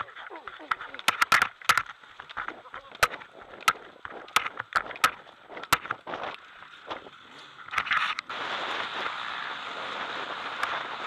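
Sharp clicks and knocks on a helmet camera over background voices. About eight seconds in, a steady rush of engine and wind begins as the 2009 BMW F800GS rides off.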